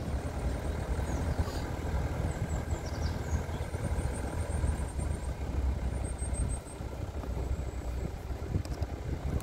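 A vehicle driving, its engine giving a steady low rumble that eases a little about six and a half seconds in, with faint short high chirps above it.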